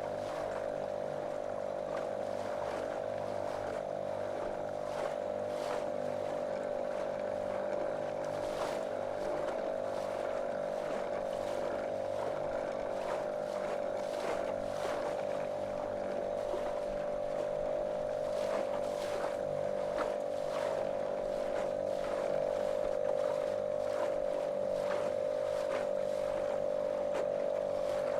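Small motorboat's motor running at a steady, unchanging pitch, with frequent short splashes of water against the hull.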